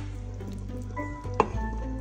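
Background music with a steady bass line and held melody notes, and a single sharp click about one and a half seconds in.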